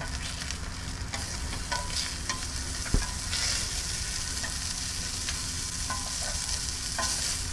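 Food sizzling and frying on a small camp griddle, a steady hiss. A few light utensil clicks, with one sharper knock about three seconds in.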